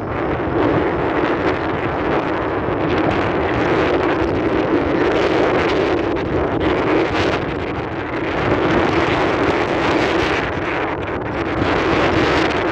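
Steady rushing noise of a landing airplane's engines, mixed with wind buffeting the microphone.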